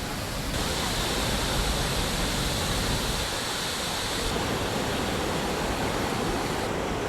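Waterfall: a steady, dense rush of falling water, shifting abruptly in tone a couple of times.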